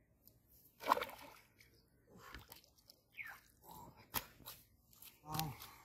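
A hooked fish splashing at the river's surface as it is hauled out on a pole line: one loud splash about a second in, then smaller splashes and knocks.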